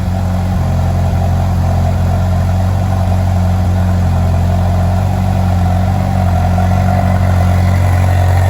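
Ferrari California T's twin-turbo V8 idling steadily with a deep, even note, stopping abruptly at the end.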